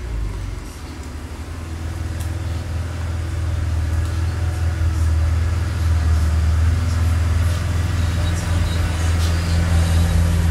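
Car engine running steadily, getting gradually louder.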